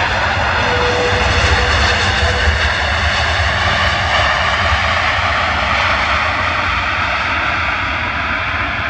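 Airbus A330-200's two Rolls-Royce Trent 700 turbofans in reverse thrust as the airliner decelerates on the runway after touchdown: a loud, steady jet roar that eases slightly near the end.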